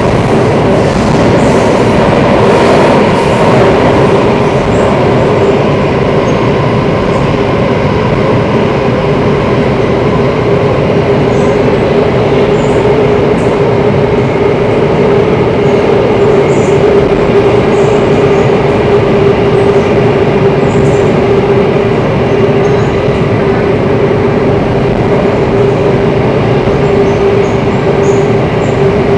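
Singapore MRT train running at steady speed, heard from inside the carriage: an even rumble of wheels on rails under a constant humming tone. Faint brief high squeaks come and go.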